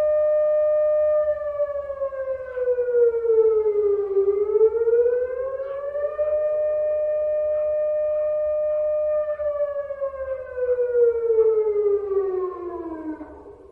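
Air-raid siren wailing: a steady tone that dips and rises back about four seconds in, holds again, then winds down in pitch near the end.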